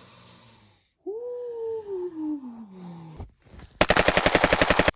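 Exaggerated snoring: a whistling tone that rises briefly and then falls slowly in pitch for about two seconds, then, near the end, a loud rapid rattle of about fourteen pulses a second lasting about a second.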